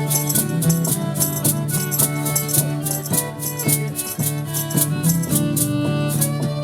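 Lively Irish jig on harmonica: a quick melody over a steady low drone, with a shaker keeping a fast, even beat.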